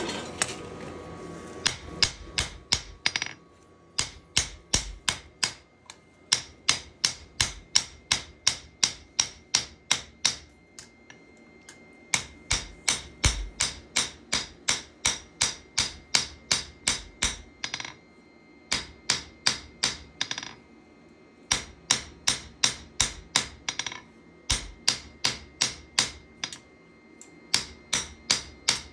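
Forging hammer striking steel in runs of quick, even, ringing blows, about three a second, broken by several short pauses.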